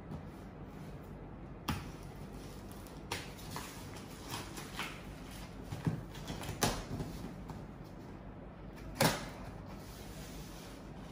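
A cardboard shipping box being cut and opened by hand: a blade slitting packing tape, with scattered scrapes, taps and rustles of cardboard and plastic wrap. The sharpest knock comes about nine seconds in.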